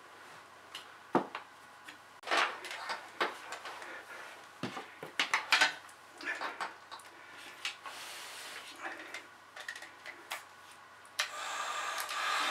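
Small clicks, knocks and rustles of wires and hand tools being handled against aluminium panel frames, then about 11 seconds in a heat gun switches on and runs with a steady blowing rush.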